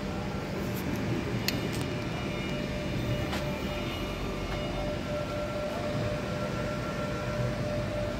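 Enertec generator's engine running steadily: a constant low drone with a thin steady whine above it, and a few faint clicks in the first few seconds.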